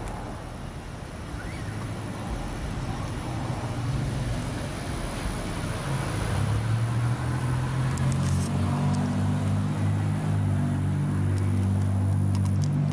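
Road traffic, with a motor vehicle's engine hum growing louder from about halfway through.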